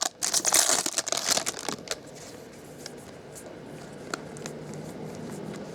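A baseball card pack wrapper crinkles as it is torn open and pulled apart for about two seconds. Then come quieter rustles and a few light clicks as the cards are handled.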